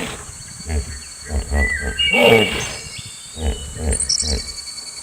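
Hippopotamus calling: a series of deep, pulsing grunts and honks, with high chirps in the background.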